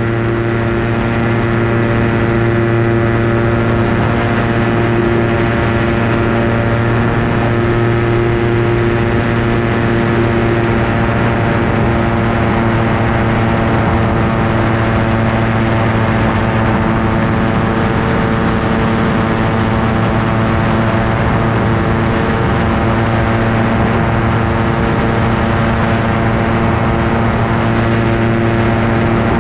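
Ultralight aircraft engine and propeller running steadily in level flight, heard from on board as a constant drone with a stack of even tones.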